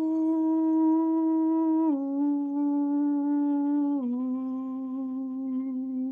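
A singer holding one long sung 'ooh' note, stepping down in pitch twice.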